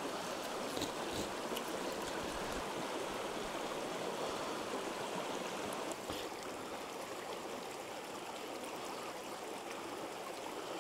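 Stream water running steadily, with a few faint clicks about a second in and again near the middle.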